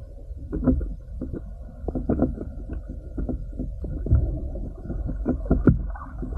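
Muffled underwater sound picked up through a camera's waterproof housing: a low rumble of moving water with irregular clicks and knocks, several a second.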